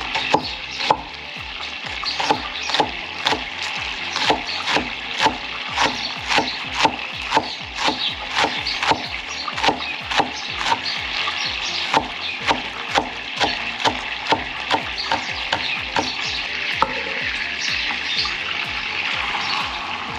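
Chopped parsley and green onion sizzling in melted butter in a pan, with a utensil knocking about two to three times a second as it is stirred. The knocks stop about three quarters of the way through, leaving the steady sizzle.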